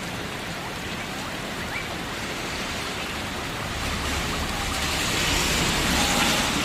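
Steady rain falling, swelling louder about two-thirds of the way through, with a few faint short chirps.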